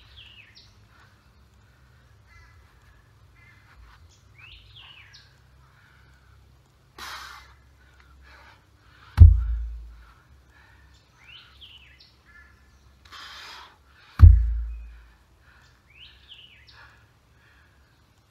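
A heavy stone dropped onto the forest floor twice, about five seconds apart, each a loud deep thud, with a hard exhale shortly before each drop. A bird repeats a short rising-and-falling call in the background.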